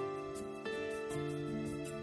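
Soft background music: sustained keyboard-like notes changing every half second or so over a light, steady high tick.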